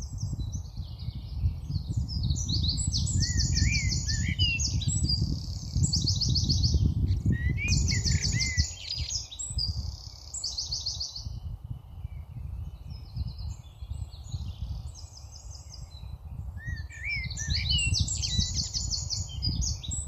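Songbirds singing, a run of high, rapid trills and short rising chirps, quieter for a few seconds past the middle, over a steady low rumble.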